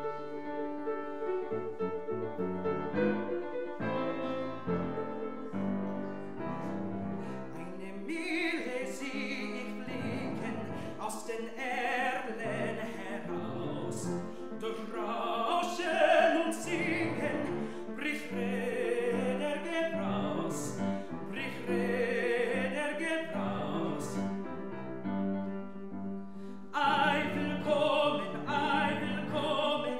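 Grand piano playing a short introduction alone, then a man's classical operatic voice comes in about eight seconds in, singing with vibrato over the piano accompaniment.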